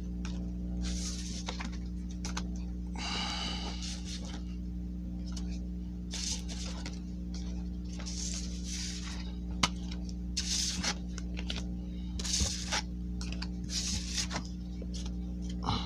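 Pokémon trading cards being slid one over another in a hand-held stack, a short papery swish about every second, over a steady low hum.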